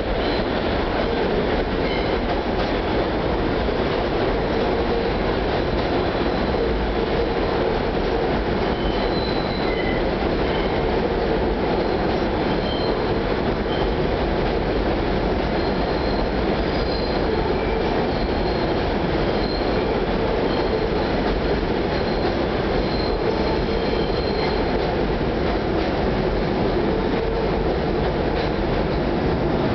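R68A subway train running along an elevated steel structure, a steady rumble of wheels on rail throughout, with brief faint wheel squeals coming and going through the middle.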